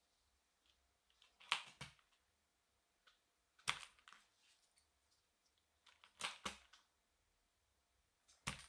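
Single keys pressed and released on a Yunzii AL75 aluminium mechanical keyboard, four times, about every two seconds, each a pair of sharp clacks. This is the keyboard with its switch pads and plastic film removed: the sound is thinner and a little muted, leaning clacky rather than thocky.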